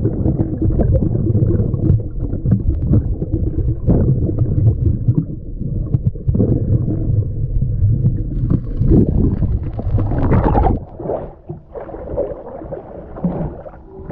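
Water sloshing and gurgling around a GoPro in a waterproof housing, with a heavy low rumble that drops away about eleven seconds in, leaving softer splashing.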